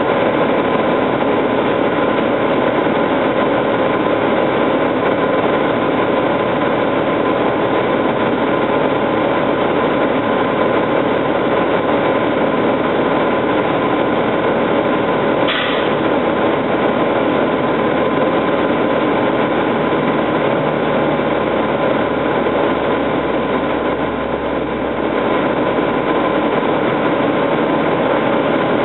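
Military vehicle's diesel engine idling steadily, with a constant whine on top. There is one short click about halfway through.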